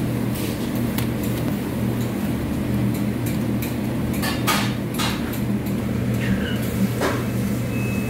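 A steady low mechanical hum, with scattered sharp knocks and clicks on top.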